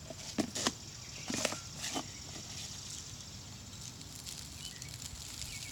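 Handling noises of a bird feeder being filled with birdseed from a cup: a few short clicks and rattles in the first two seconds, then low, steady outdoor background noise.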